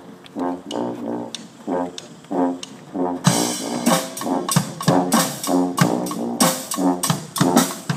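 Brass marching band with sousaphones playing a rhythmic tune in short repeated notes. About three seconds in, drums and cymbals come in and the band gets louder and fuller.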